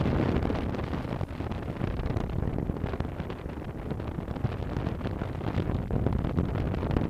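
Wind rushing over the microphone: a steady, rumbling noise that flutters with the gusts.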